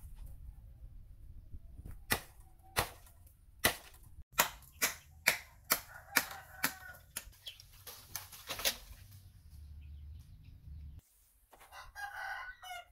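A blade chopping into a bamboo stalk: a run of about a dozen sharp strokes, roughly two a second. Near the end a rooster crows.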